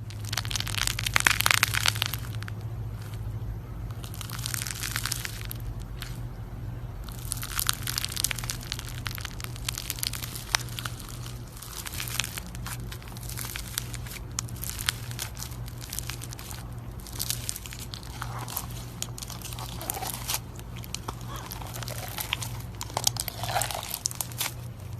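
Slime being squeezed and kneaded by hand, with a continuous run of crackling and popping clicks.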